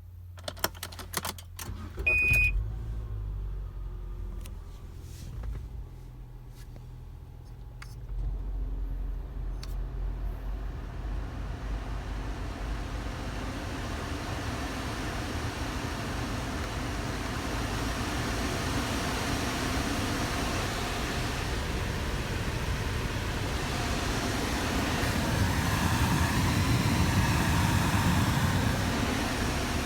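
A few clicks and a short high beep, then a car's engine running while the air-conditioning blower fan blows air through the dashboard vents, the rush of air growing steadily louder as the fan is turned up.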